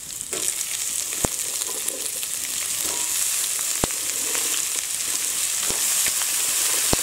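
Chopped snake gourd frying in hot oil with onions and green chillies in a metal pan. The sizzle swells just after the start as the wet pieces go in and then holds steady, with a few sharp ticks through it.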